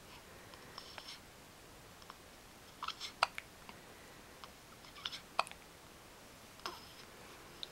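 Quiet hiccups: small wet mouth clicks in short groups, about one every two seconds.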